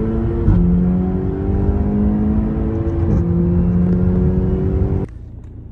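Car engine heard from inside the cabin under hard acceleration, its note climbing steadily in pitch and dropping twice, about half a second and three seconds in, as it shifts up through the gears. It cuts off suddenly near the end, leaving a quieter low hum.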